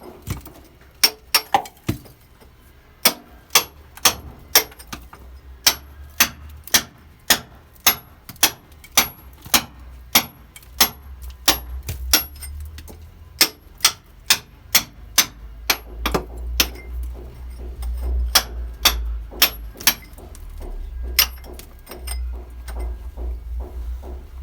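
Hammer blows on old galvanized iron pipe work, sharp metallic strikes at about two a second with a few short breaks. A low rumble rises underneath in the second half.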